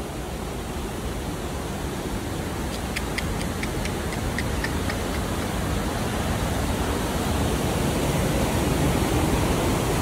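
Steady rushing roar of a large waterfall in monsoon flow, growing gradually louder as it is approached. A short run of faint high ticks sounds about three seconds in.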